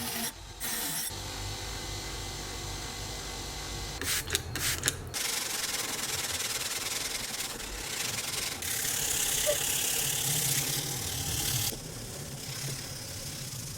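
Sanding: an abrasive rubbing steadily over a surface, with a few short knocks about four seconds in and a louder stretch past the middle.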